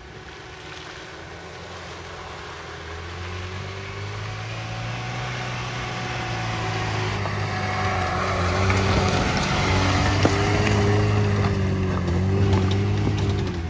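Lada Niva 1.7 petrol four-cylinder engine pulling the SUV up a rocky dirt track. It grows steadily louder as the vehicle comes close, and the revs rise and fall with the terrain. A few sharp cracks of stones under the tyres come about ten seconds in.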